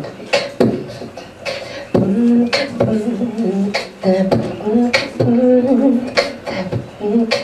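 A woman's wordless singing over a tall hand drum struck in a beat of roughly two strokes a second; the held, wavering voice comes in about two seconds in.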